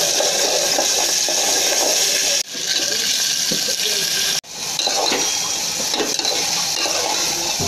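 Onion, garlic and green chillies sizzling steadily in hot oil in an aluminium pot while a metal spatula stirs them. The sizzle cuts out suddenly twice, and soaked broken rice sizzles in the oil as it is tipped in and stirred.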